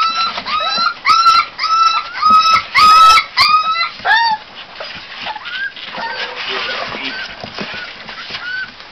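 American pit bull terrier puppy crying in a run of high, loud yelps, about two a second. A little over four seconds in, the cries give way to fainter, scattered whimpers.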